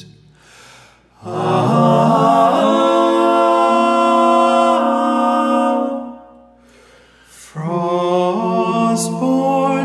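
Unaccompanied male voices singing a wordless chord in close harmony, held for several seconds and fading out. After a short break a second held chord begins.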